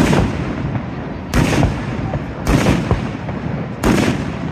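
Aerial fireworks bursting: four loud booms about a second and a quarter apart, each trailing off in a low rumbling echo.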